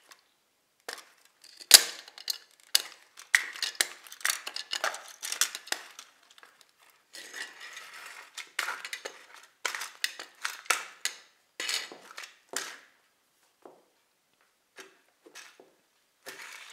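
Plastic toy truck model cracking and crunching under a stiletto-heeled boot on a tile floor: a dense run of sharp snaps and crackles, the loudest about two seconds in, thinning to a few scattered clicks after about thirteen seconds.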